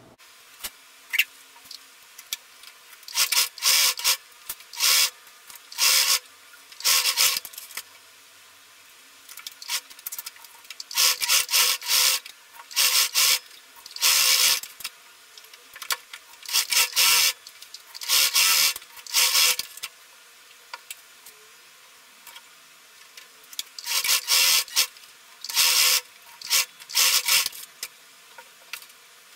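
Cotton-like dress fabric rustling and rubbing as it is handled and smoothed, in many short, irregular bursts of rasping noise, each under a second, with quiet gaps between.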